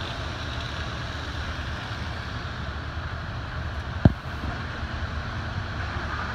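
Steady low rumble of idling fire-truck engines with wind on the microphone, broken by one sharp thump about four seconds in.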